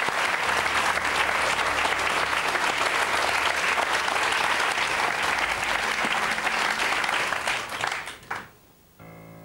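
Studio audience applauding, dying away about eight seconds in. A quiet music bed with held notes begins just before the end.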